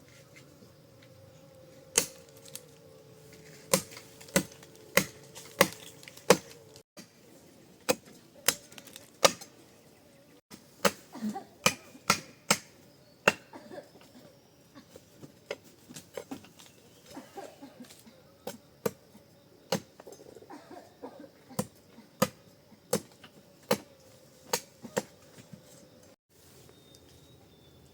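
Repeated sharp knocks at an uneven pace, about one or two a second, with short pauses between runs.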